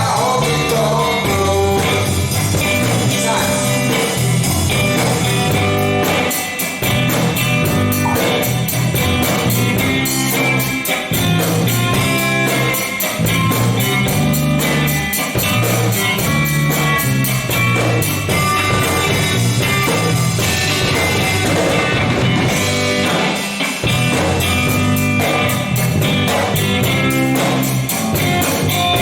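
Rock music from a band: electric guitar over bass and a steady drum beat, with some singing.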